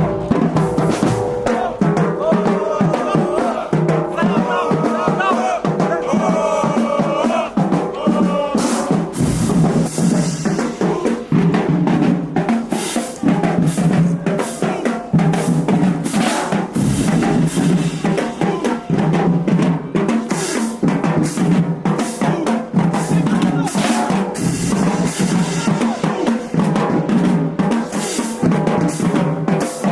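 Marching band drumline playing a cadence: snare drums, bass drums and cymbal crashes in a steady, driving beat, with some sustained pitched band sound over it in the first several seconds.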